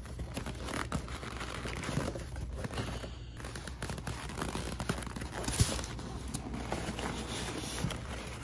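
Hands scraping and rubbing on a polystyrene foam shipping cooler lid inside a cardboard box as it is worked open, with a run of small scrapes and clicks and one sharper knock about halfway through.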